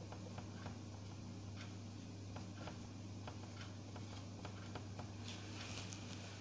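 Whiteboard marker tapping and scraping on the board while writing, as faint irregular clicks with a longer scratchy stroke about five seconds in. A steady low electrical hum runs underneath.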